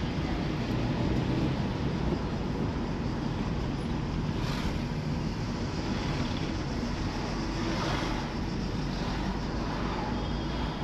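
Steady running rumble of a vehicle in motion, with a noisy wash over it and two brief rushing swells about four and eight seconds in.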